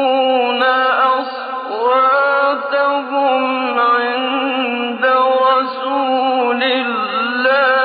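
A male reciter chants the Quran in a melodic, ornamented style, holding and bending long drawn-out notes with short breaks between phrases.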